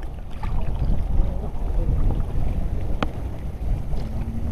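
Wind buffeting the microphone over choppy sea, a fluctuating low rumble. A single sharp click comes about three seconds in.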